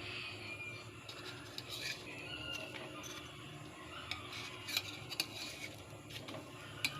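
Scattered light clicks and taps of a kitchen utensil against cookware, a few close together near the middle and one near the end, over a low steady hum.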